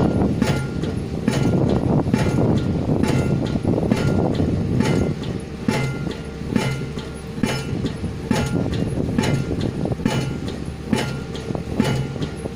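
Pile-driving rig hammers striking concrete ground piles (paku bumi) in a steady rhythm, about two clanking blows a second, over the low drone of the rigs' engines.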